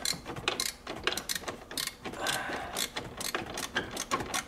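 Long ratchet spanner clicking in repeated short strokes as it undoes a lock nut behind the dashboard.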